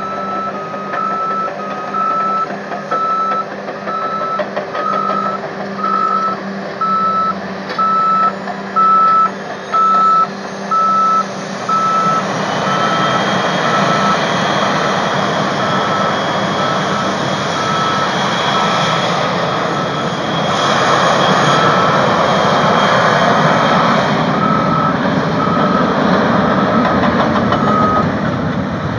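A heavy-equipment backup alarm beeps steadily over a running diesel engine. About twelve seconds in, a jet spools up to takeoff power: a high whine and a broad rush of jet noise build, loudest in the last third.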